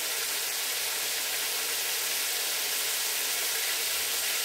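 Pork chops sizzling as they brown in a frying pan and a pot on the stove: a steady, even hiss.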